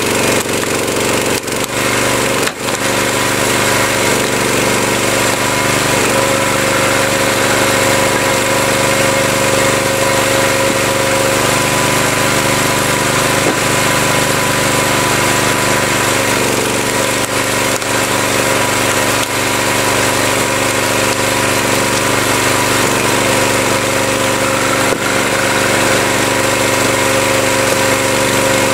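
Small gas engine of a log splitter running steadily, its tone shifting a few times as the load changes.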